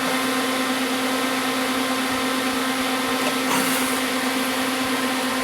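Steady background hum with a constant low tone over an even hiss, like a running fan or motor, with one faint light knock about three and a half seconds in.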